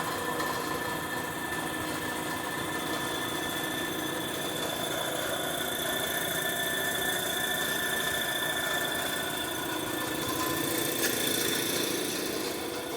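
Belt-driven electric air compressor running steadily just after being plugged in, quiet, with a thin steady high whine over the hum of the motor and pump.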